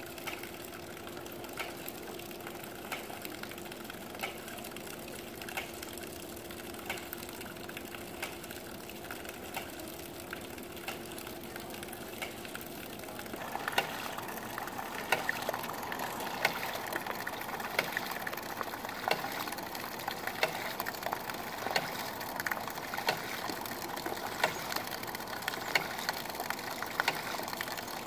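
Hydraulic ram pump running: its waste valve clacks shut again and again in a steady rhythm, with water splashing out around the valve. The clacks and splashing get louder about halfway through.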